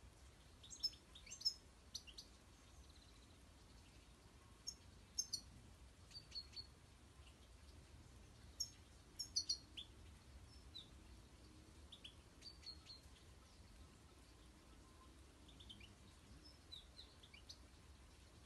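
European goldfinches calling: short, high twittering chirps in scattered clusters, busiest in the first half and sparser toward the end, over a faint steady background hiss.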